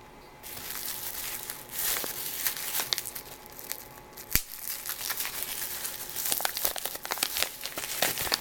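Plastic packaging crinkling and rustling as it is handled and pulled open, starting about half a second in, with scattered small clicks and one sharp tap a little after four seconds.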